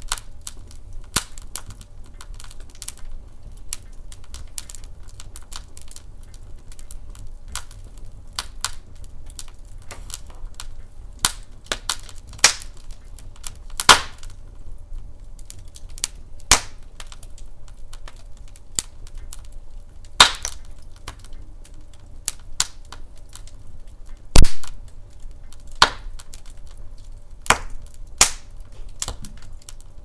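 Douglas fir logs burning in a fireplace, crackling with irregular sharp pops, one especially loud pop about three-quarters of the way through, over a low steady rumble.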